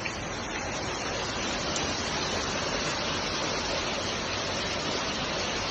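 Steady rushing of running water, a continuous even hiss with no breaks.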